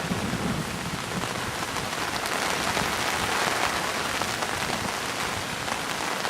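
Hurricane rain falling steadily, a dense, even hiss.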